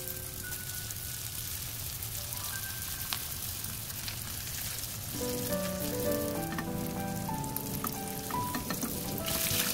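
Spring rolls deep-frying in hot oil in a wok: a steady sizzle with occasional sharp pops. Light background music with plucked notes comes in about halfway through.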